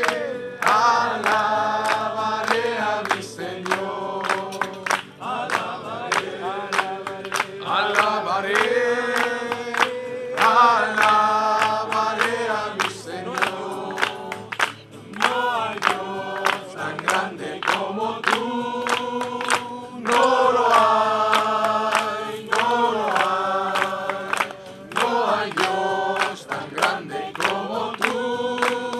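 A congregation of men and women singing a Spanish worship chorus together, with steady hand clapping on the beat.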